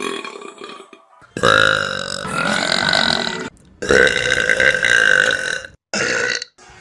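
Burping: two drawn-out belches of about two seconds each, one right after the other, then a short belch near the end.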